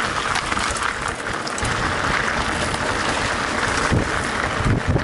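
A mountain bike riding a dirt trail: a steady rush of wind over the microphone, with tyre noise and irregular low bumps as the bike rolls over the uneven ground.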